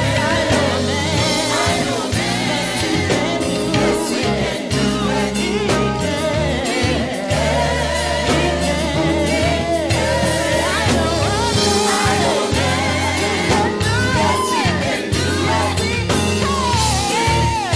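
Gospel music with singing, possibly a choir, over a band with drums and a steady bass.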